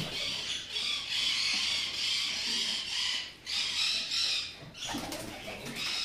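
Domestic pigeons in a loft: wings flap, and low cooing comes about five seconds in. Behind them runs a dense, high, continuous chatter of many birds that swells and dips about once a second.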